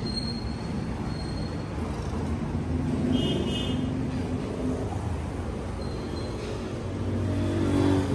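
Tata 407 four-cylinder diesel engine running a 25 kVA open generator set: a steady running drone that swells briefly near the end.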